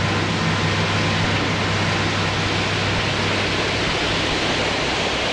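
Loud steady rushing noise with a faint low hum underneath, unchanging throughout.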